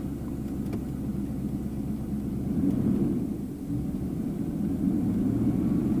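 A 1992 GMC Suburban's 5.7-litre throttle-body-injected V8 running cold at a fast idle, misfiring. The owner puts the misfire down to a leaking spark plug wire or a distributor cap and rotor fault. The engine picks up a little toward the end.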